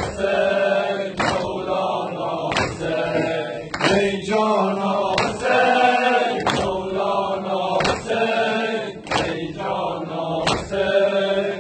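Men chanting a Muharram noha in unison, with the crowd's rhythmic chest-beating (matam): a sharp, unison slap of hands on chests about every 1.3 seconds, about eight times.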